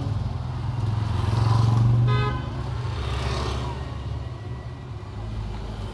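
Background road traffic: a vehicle's engine rumble swelling to its loudest about two seconds in, with a short horn toot just after.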